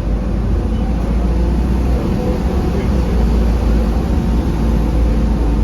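Optare Solo M900 single-deck bus running, heard from inside: a steady, loud, low rumble of engine and running gear.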